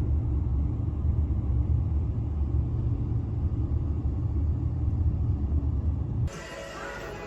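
Steady low rumble. About six seconds in it cuts off suddenly and music starts.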